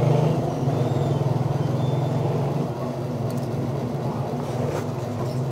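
A motor running steadily with a low hum, a little quieter from about two and a half seconds in.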